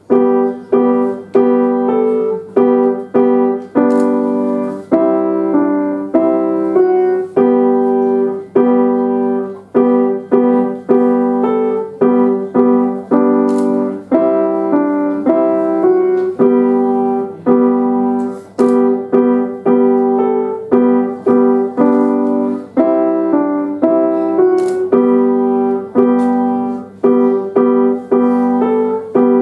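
Acoustic Essex grand piano played solo: a simple melody in the middle of the keyboard over steady low notes, struck in an even pulse of a little under two notes a second, each note ringing and fading. The playing begins at once out of near-quiet.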